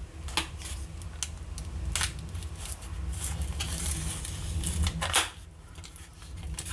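A small pocket-knife blade scraping and slitting along the edge of a cardboard blister-pack card, with a few sharp clicks and a stretch of scratchy rasping as it cuts.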